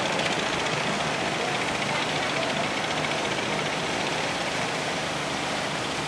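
Steady rushing noise of heavy surf breaking on the beach, with a low engine hum underneath.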